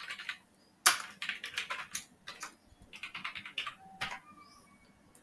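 Computer keyboard being typed on, quick runs of key clicks with short pauses between them.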